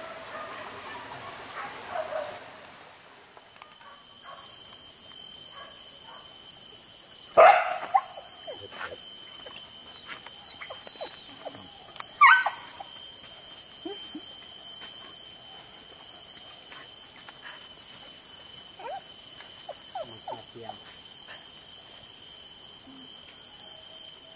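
Hunting dogs giving tongue as they find a wild boar: scattered high yelps and barks, with two loud sharp yelps about seven and twelve seconds in. A steady high buzz runs underneath.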